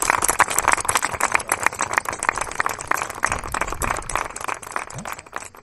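A crowd of guests applauding, many hands clapping at once, dying away toward the end.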